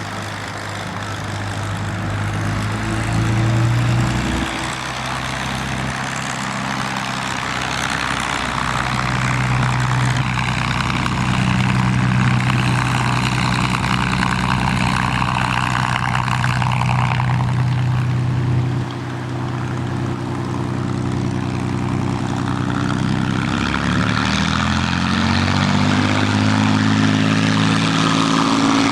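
Propeller aircraft engine droning as the plane flies its display, the pitch shifting several times and rising near the end as it changes speed and distance.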